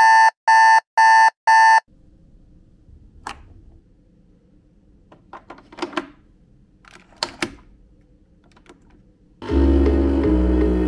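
A wake-up alarm beeps four times in quick succession. Then a few quiet plastic clicks and knocks as the capsule holder of a Nescafé Dolce Gusto capsule coffee machine is handled, and background music starts near the end.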